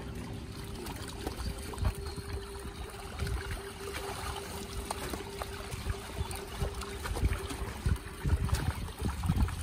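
Water splashing and trickling as live fish thrash in a seine net being gathered in shallow pond water, with heavier splashes near the end. A steady low hum runs underneath and stops near the end.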